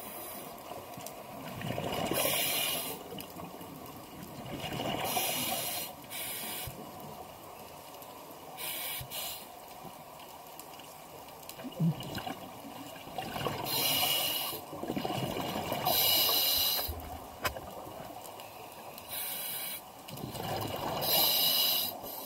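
Scuba diver breathing through an open-circuit regulator underwater: hissing inhalations through the demand valve alternating with gurgling rushes of exhaled bubbles, several breaths a few seconds apart.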